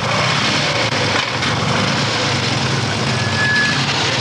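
Motorcycle engines running at idle, a steady loud exhaust sound with fast firing pulses. A brief high tone sounds about three seconds in.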